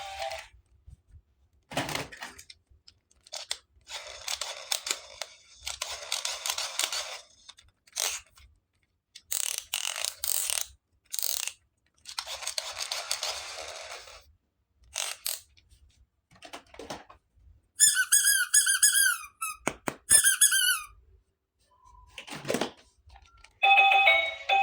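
Toy packaging being handled and unwrapped: rustling and crinkling in separate bursts of a second or two, then a run of short, high squeaks about three-quarters of the way in.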